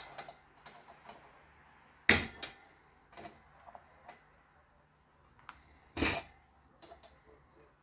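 Small pliers and the parts of a metal mini USB fan knocking and clicking as the fan is taken apart by hand: two sharper knocks, about two and six seconds in, with light ticks between.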